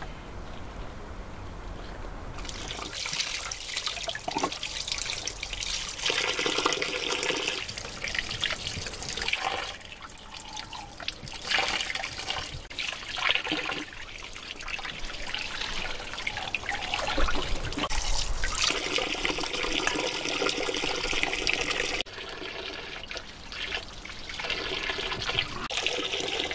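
Running water splashing over a plucked duck carcass and the hands rinsing it. The flow starts about two seconds in, its splash swelling and dipping as the bird is turned under the stream.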